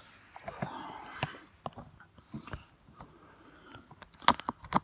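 A plastic-wrapped Blu-ray case being handled and picked at to open its shrink wrap: scattered sharp clicks and brief crinkly rustles, with a quick cluster of louder clicks near the end.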